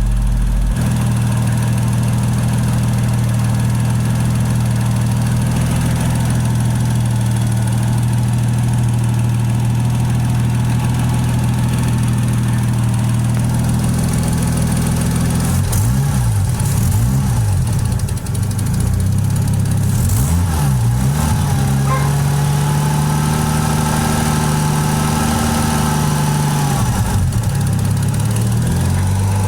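Toyota 1JZ inline-six engine idling steadily, then revved up and down a few times from about halfway in, held at higher revs for several seconds and let fall back to idle. The owner is chasing a ticking noise from around the intake plenum.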